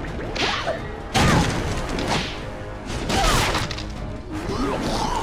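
Cartoon crash and smash sound effects over an action music score: a heavy impact about a second in and another about three seconds in, as a character is slammed into a throne and breaks it.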